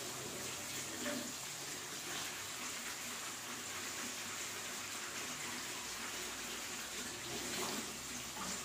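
Chopped onion, tomato and potato frying in an iron kadai on the stove: a steady sizzle.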